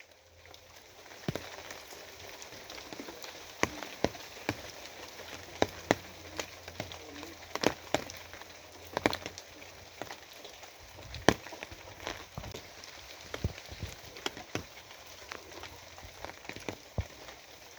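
Rain falling: a steady hiss with loud, irregular drops striking a hard surface, several each second. The hiss rises back in just at the start.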